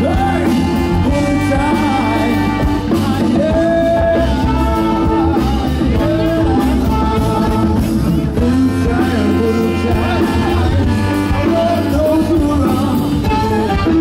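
Live band music: a saxophone melody over drum kit, guitar and hand drums, loud and continuous.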